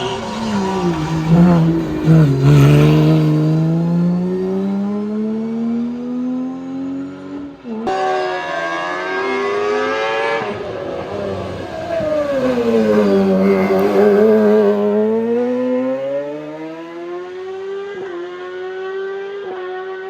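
Race car engines on a hillclimb run, revs dropping on the brakes and climbing again under hard acceleration through the gears. A brief break about eight seconds in, then another engine note that dips low and climbs back up.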